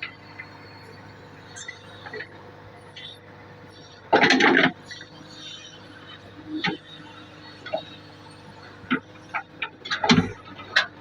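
JCB 3DX backhoe loader's diesel engine running steadily, with scattered metallic clinks and knocks and one loud half-second burst of noise about four seconds in.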